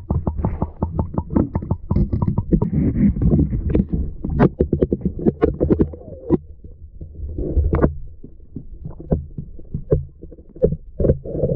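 Muffled clicks and knocks over a low rumble, picked up by a camera under the ice while a hooked trout is being fought on the line. A quick, even run of clicks fades out about a second in.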